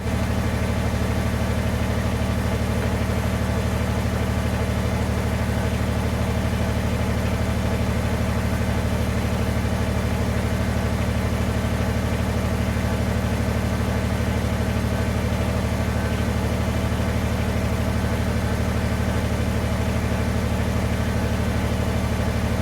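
Kubota BX23S compact tractor's small three-cylinder diesel engine running steadily at constant speed while it pulls a log on a rope.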